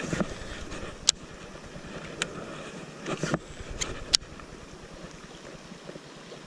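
Steady rushing of shallow river water, with a handful of sharp clicks spread over the first four seconds.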